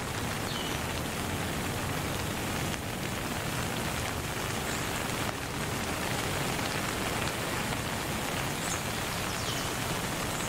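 A steady, even rain-like hiss, with a few faint, short high chirps.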